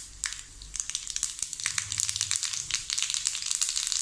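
Mustard seeds spluttering in hot oil in an iron kadai: a rapid, irregular run of sharp pops over a steady frying sizzle.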